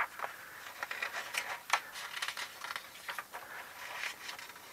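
Pages of a comic book being turned by hand: soft paper rustling with a few short, crisp flicks.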